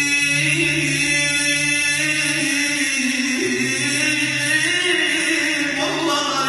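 Male voices chanting dhikr without instruments: a low note is held steadily throughout while a higher voice line wavers and shifts in pitch above it.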